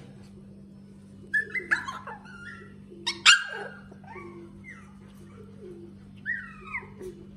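Husky puppies whimpering and yipping in short, high, sliding calls, loudest about three seconds in and again near the end.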